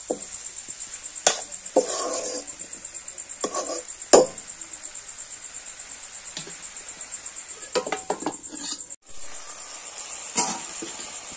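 Metal spatula scraping and knocking against an iron wok as chicken and greens are stir-fried, with a few sharp clanks. A steady, high-pitched pulsing trill runs in the background.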